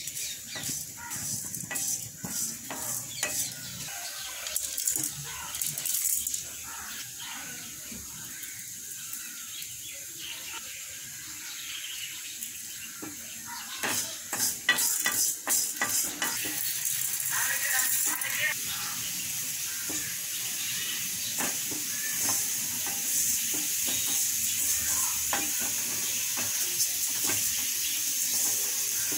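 Wooden spoon stirring and scraping dry split lentils, dried red chilli and whole spices around a steel pan, with clicks and rattles of the grains against the metal. A steady hiss builds in the second half as the mix roasts.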